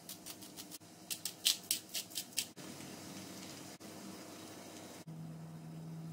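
Spice shaker shaken over a pot of chopped onions and green peppers: quick, sharp rattling shakes, about four or five a second, for a couple of seconds. After that comes a steady soft hiss, and a low hum starts near the end.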